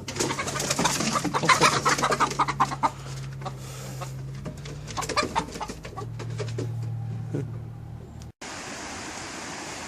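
Chickens squawking and clucking in a flurry, busiest over the first three seconds, with a steady low hum underneath. Near the end the sound cuts to a steady hiss.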